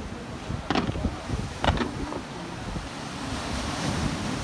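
Fireworks bursting: one sharp bang about three-quarters of a second in and a quick double bang before two seconds. Under them runs the steady wash of small waves breaking on the shore, swelling near the end.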